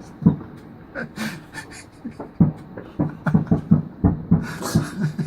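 A person laughing hard in short, breathy, panting bursts that come quicker in the second half.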